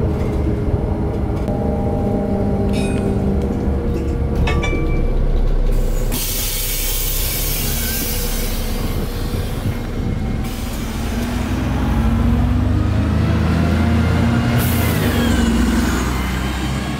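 Bus interior: the engine hums steadily, then climbs in pitch as the bus pulls away, with two long bursts of hissing about six and fourteen seconds in.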